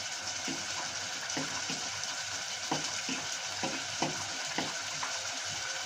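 Steady sizzling of food cooking in a pot on the stove, with about seven light knocks and scrapes of a spoon stirring it.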